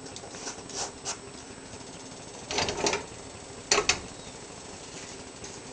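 Cooking oil heating in an aluminium pressure cooker on an electric stove, giving off a few scattered crackles and pops, with two short louder clusters of crackling a little past the middle.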